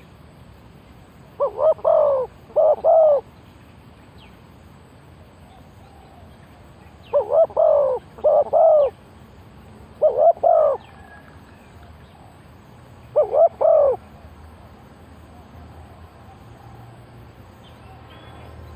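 Spotted dove cooing: four phrases of two or three deep coos each, spaced a few seconds apart.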